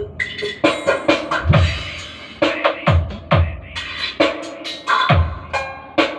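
Dance remix music with punchy, pitch-dropping kick drums and scratch effects, played loud through a home sound system's mid/high speakers during a sound check, before the subwoofer is brought in.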